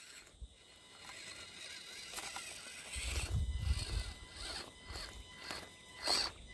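Axial SCX24 micro crawler's small electric motor and gears whirring in short stop-start spurts as it crawls over rock, louder from about halfway through, with one louder scrape near the end.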